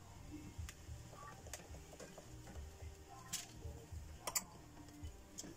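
Stained-glass pieces and metal pins knocking lightly against the lead and the workbench as the glass is fitted into place: a few scattered sharp clicks over a faint low hum.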